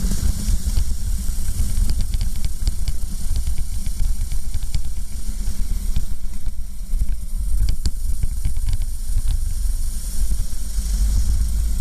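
Racing kart at speed heard from an onboard camera: wind rushing and buffeting over the microphone with the kart's engine and chassis rumble underneath, and a run of sharp clicks and rattles in the middle.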